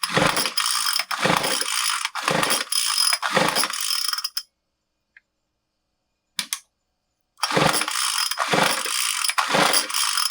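Recoil starter of a Craftsman WS215 two-stroke string trimmer being pulled again and again, the engine turning over without firing or popping even with fuel poured down the carburetor. The pulls come about one a second, with a pause of a few seconds midway. The mechanic traces the failure to a major air leak that keeps fuel out of the combustion chamber.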